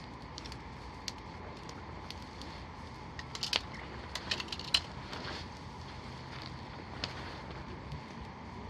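Wood campfire crackling, with scattered sharp pops and a quick run of louder pops about three and a half to five seconds in.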